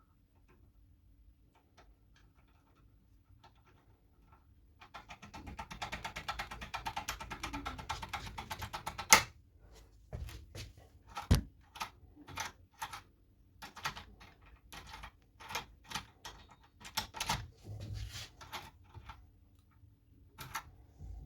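Lock-pick tool worked in a Titan K5 lock's keyway: a dense, rapid metallic rattle of clicks for a few seconds, one loud click, then separate clicks every half second or so.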